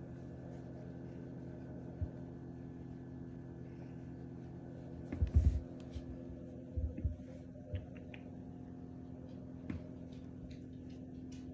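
Steady low electrical hum of a household appliance, with a few soft low thumps, a short cluster about five seconds in and another around seven seconds.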